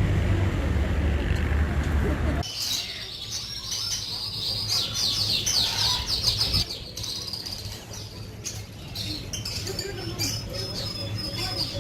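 Many small caged birds chirping and twittering together in quick, overlapping high calls, starting about two and a half seconds in after a loud low noise that cuts off suddenly.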